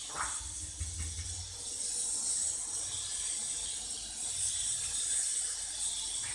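Steady high hiss of a paratha cooking on a hot tawa over a gas burner, with a brief low rumble about a second in as it is turned.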